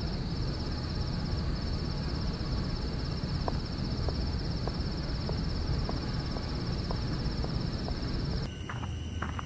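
Crickets trilling steadily in a night ambience over a low hum, with a few faint soft ticks; the trilling cuts off suddenly near the end.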